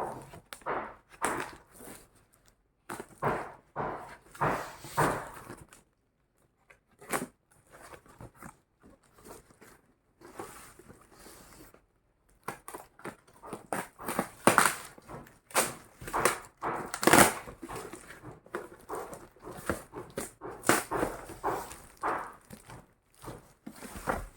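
Packaging being handled during an unboxing: irregular crinkling, rustling and small knocks. It eases off for a few seconds in the middle, then gets busier again.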